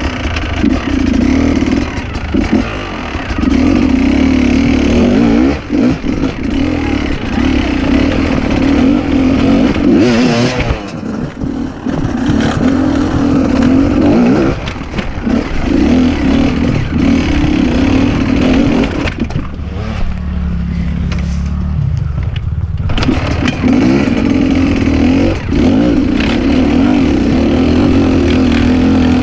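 Dirt bike engine revving unevenly, rising and falling under load. About twenty seconds in it settles to a steady lower note for a few seconds, then picks up again.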